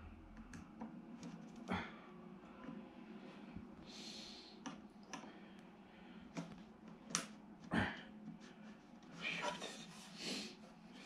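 Scattered sharp clicks and light knocks from a small hand tool and fingers working at a black box, with short rustling noises about four seconds in and again near the end.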